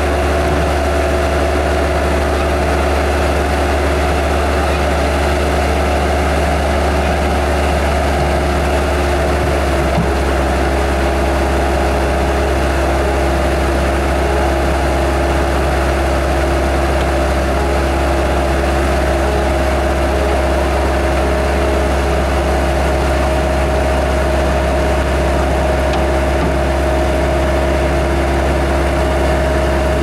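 1999 Bobcat 753 skid steer's four-cylinder Kubota diesel engine running steadily, with a steady engine hum throughout. About ten seconds in, the engine note changes slightly and deepens.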